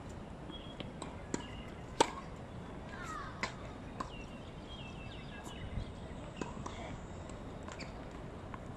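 Scattered sharp knocks of tennis balls on racket strings or the hard court, a few seconds apart, the loudest about two seconds in. Small birds chirp in the background.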